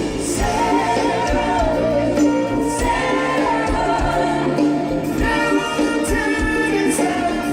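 Music with singing voices, a choir-like vocal over a steady accompaniment.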